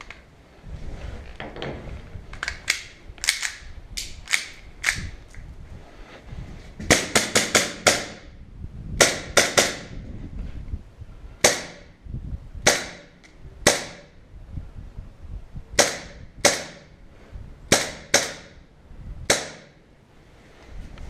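Airsoft guns firing sharp pops: a few fainter shots, then a fast string of about six, then single shots roughly a second apart.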